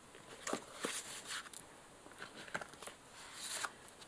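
Soft scattered taps and rustles of a Hobonichi Weeks planner and a pencil board being handled, the board being fitted to the planner as a cover.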